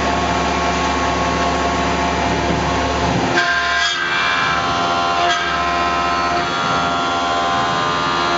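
Tormach PCNC 1100 CNC mill's spindle running a half-inch carbide end mill, a steady whine of several tones. About three seconds in, the sound changes to higher tones with a few light ticks as the cutter engages the 6061 aluminum for a light finishing skim cut around the part.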